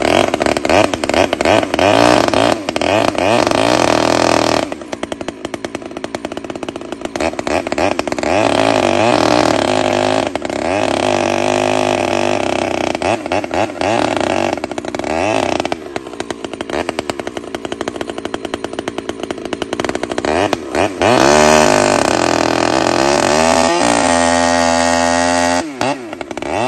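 Husqvarna 266XP two-stroke chainsaw, fitted with a homemade expansion-chamber pipe, cutting through a log at full throttle. Its pitch sags and climbs as the chain loads and frees up, and it drops away briefly just before the end.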